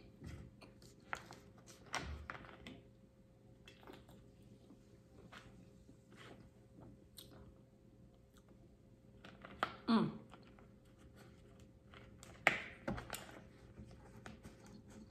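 Quiet chewing and mouth sounds with scattered small clicks, then a plastic water bottle handled for a drink: a louder crackling, falling sound about two-thirds of the way through and a sharp knock shortly after.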